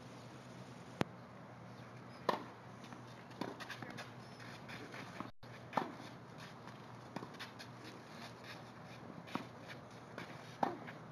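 Tennis ball being struck by rackets and bouncing on the court during a rally: sharp pops every one to two seconds, about seven in all, some ringing briefly.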